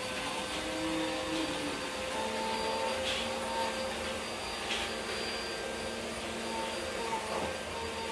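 A motor-driven blower running steadily: an even rush of air with a faint motor whine in it.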